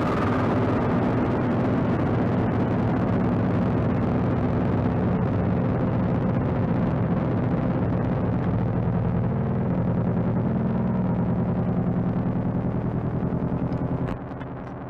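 A dense, distorted electronic drone: steady low tones under a thick noisy wash with a fast flutter, dropping abruptly in level near the end.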